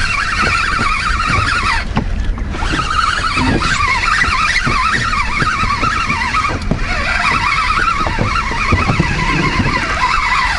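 Spinning fishing reel being cranked to wind in line: a wavering, squeaky gear whine that breaks off briefly about two seconds in and again near seven seconds, and stops as the rig comes up to the boat.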